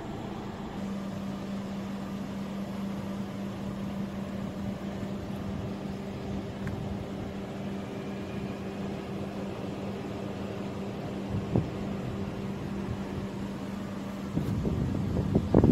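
Steady mechanical hum holding one low tone, with a single knock about eleven seconds in and a burst of knocks and handling noise near the end as the Corolla's rear door is opened.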